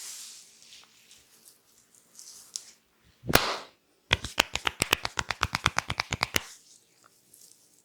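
Percussive massage strokes on the body: one louder slap, then a fast, even run of tapping strikes at about ten a second lasting a couple of seconds, with soft rustling of hands on skin and hair around them.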